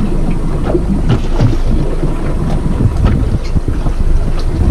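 Wind buffeting the microphone on a small drifting boat at sea, a loud rough rumble with a few irregular low thumps.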